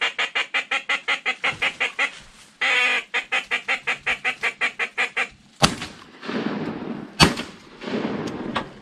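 A duck call blown in a fast, even string of quacks, about seven a second, broken once by a longer held note, then a second string. About five and a half seconds in, two shotgun shots ring out a second and a half apart, the second one louder.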